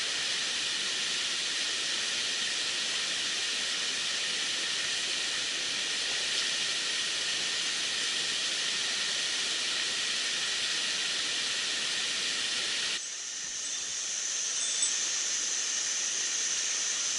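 Rushing water of a mountain stream, a steady hiss. About 13 seconds in it changes abruptly to a thinner, higher hiss.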